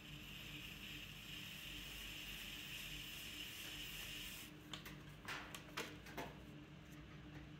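A trimming tool shaves leather-hard terracotta clay on a spinning pottery wheel, making a steady scraping hiss that stops about four and a half seconds in. A few light clicks follow. The wheel's motor hums faintly throughout.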